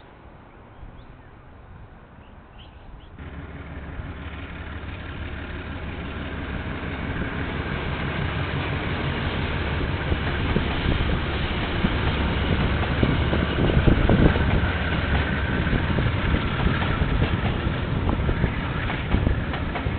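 KiwiRail diesel-hauled train approaching and passing, picked up by a security camera's microphone. A low rumble sets in about three seconds in and grows steadily louder, loudest around the middle, then stays loud.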